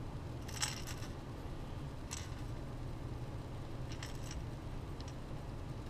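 Light metallic clinks in three short clusters, the first about half a second in, over a steady low hum.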